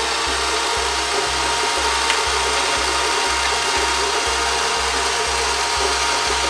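Small electric gear motor of a Huina 1:10 diecast RC forklift running steadily with a buzzing gear whine as it raises the forks up the mast.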